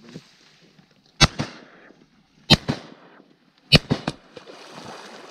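Three shotgun shots, about a second and a quarter apart, each followed by a fainter crack a moment later.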